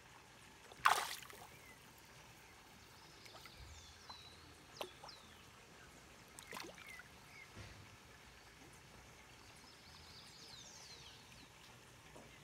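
Water splashing sharply about a second in as large fish lunge at food on the surface, followed by a few quieter splashes.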